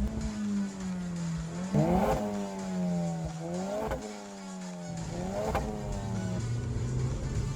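Suzuki Swift Sport's turbocharged four-cylinder engine revving: the revs jump up sharply three times, each time falling away slowly, then settle lower near the end.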